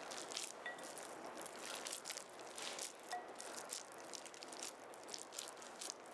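Hands squeezing and shaping a raw ground turkey burger mixture into a patty: faint, irregular wet squishing and crackling.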